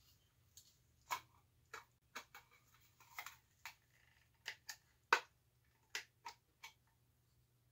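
Tin snips cutting through the thin sheet metal of an Altoids tin: about a dozen sharp, irregularly spaced snips, the loudest about five seconds in.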